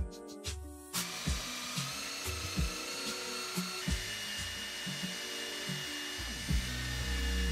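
Makita 14.4 V cordless impact driver driving screws into a plywood block, starting about a second in and running on with a shift in its pitch near the middle.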